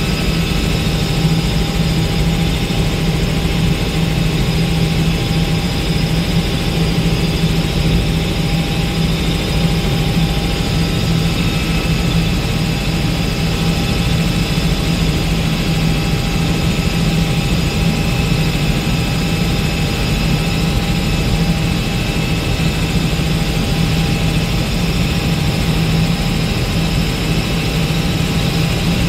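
Robinson R66 turbine helicopter in steady level flight, heard from inside the cabin. A constant low drone from the rotor and turbine runs with a few steady higher whining tones above it.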